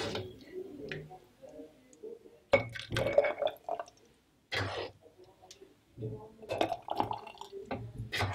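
A metal ladle scraping the pot and clinking against a glass jar as thick, hot pomegranate molasses is poured into the jar, in several separate bursts with sharp clinks.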